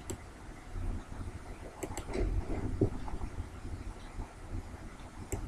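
A few sharp computer mouse clicks, coming in close pairs (at the start, twice about two seconds in, and again near the end), over a low background rumble.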